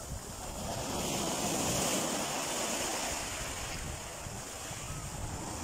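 Small sea waves washing and breaking onto a sandy shore at close range, with wind buffeting the microphone; the surf swells a little in the middle.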